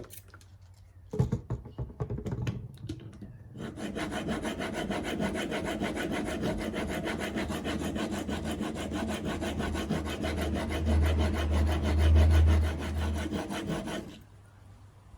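Steel chisel bevel being rubbed back and forth on a coarse, water-wetted sharpening stone, held in a roller honing guide: a few knocks as it is set in place, then steady rapid scraping from about three and a half seconds in until it stops near the end. The bevel is being ground down from several facets to a single 25-degree bevel.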